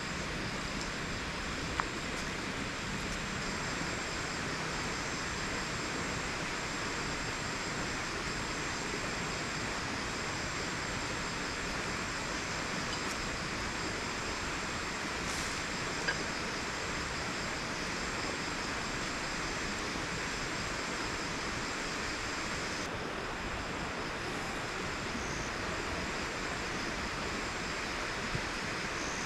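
A river flowing, a steady, even rush of water, with a faint high pulsing tone above it and a couple of tiny clicks.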